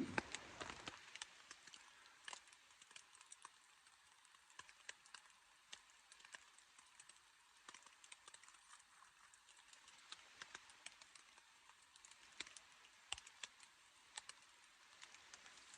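Faint, irregular small clicks and ticks over a near-silent background.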